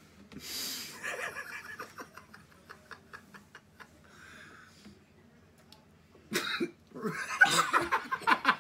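A man coughing, short harsh coughs with his mouth burning from Carolina Reaper hot sauce; a louder cough comes about six seconds in, then laughter breaks out near the end.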